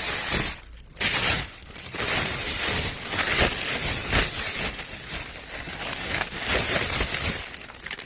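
Plastic packaging crinkling and rustling as it is handled, in irregular surges with a short lull just before the first second.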